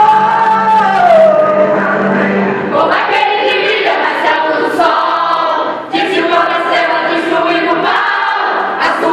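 A group of voices singing a Christian worship song together, with a steady low held note beneath them for the first two and a half seconds and again in the later part.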